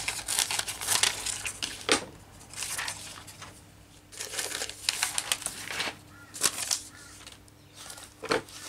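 Scissors snipping a thin plastic laminating pouch, then the pouch sheets rustling and crinkling as they are handled and smoothed flat, with a couple of sharper taps about two seconds in and near the end.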